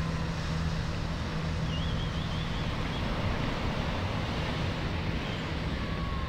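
Steady wash of surf and wind at the shore, with a steady low hum underneath. A brief high wavering chirp comes about two seconds in.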